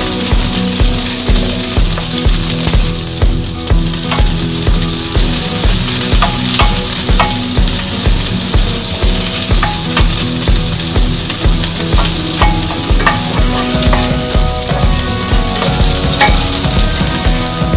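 Sliced onions and garlic sizzling as they fry in hot oil in a heavy black pot, with a spatula stirring and now and then clicking against the pot. A steady low pulsing beat runs underneath.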